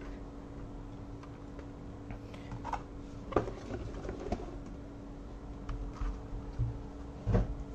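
Mechanical keyboard being handled: a few scattered taps and light plastic knocks, the loudest about three and a half seconds in and again near the end, over a steady low hum.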